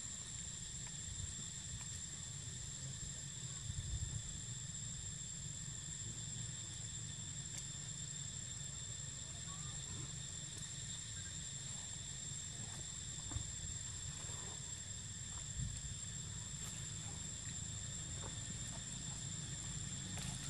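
Steady, unbroken high-pitched drone of insects, over a constant low rumble, with a few faint short chirps in the middle.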